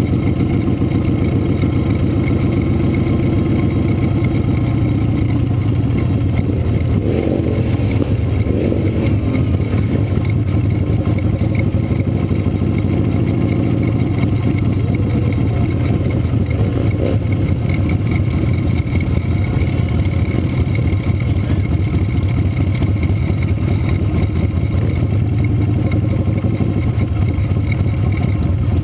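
Motorcycle engine running steadily at low parade speed, heard close up from on board the bike.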